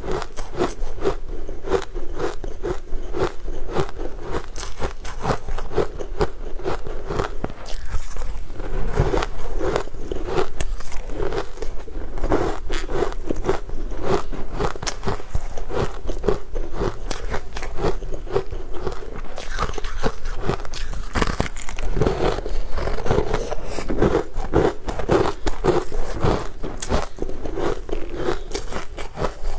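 Close-miked eating sounds: a person biting and chewing crumb-coated sweet cakes, a steady run of crunchy bites and chewing.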